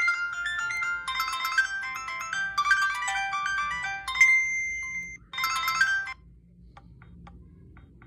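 Preloaded MIDI ringtone playing from a Huawei CM295 feature phone's speaker: a quick, bright melody of short notes. It ends in a high note held for about a second, then one last short phrase, and cuts off about six seconds in. After that only a few faint clicks are left.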